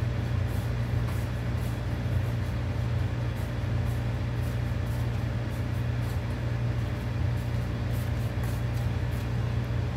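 Pot of chicken soup boiling under its glass lid: a steady low hum with faint, scattered crackling of bubbles.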